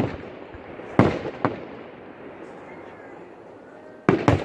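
Aerial fireworks bursting in sharp bangs: one right at the start, two about a second in, and a quick pair near the end, each trailing off briefly.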